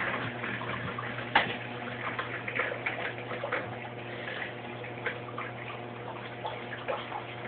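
Kenmore Oasis top-load washing machine filling with water for its rinse cycle: water splashing into the tub over a steady low hum, with small ticks and one sharper click about a second and a half in.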